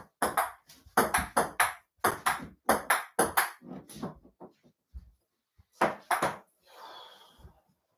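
A table tennis rally: the ball clicks off the paddles and the mini table top several times a second for about four seconds, then a couple more bounces about six seconds in, followed by a soft scuffing noise.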